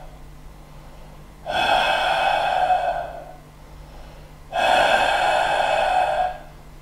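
A man doing Darth Vader's heavy mask breathing, two long drawn breaths with pauses between them.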